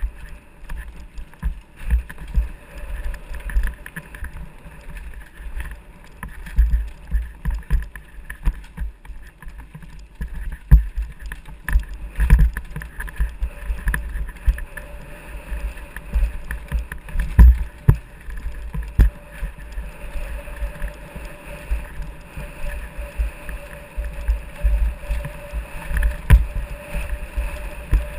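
Downhill mountain bike ridden fast down a dirt forest trail, heard from an action camera riding with it: steady wind and tyre rumble, broken by frequent knocks and rattles as the bike hits roots and bumps, several of them hard.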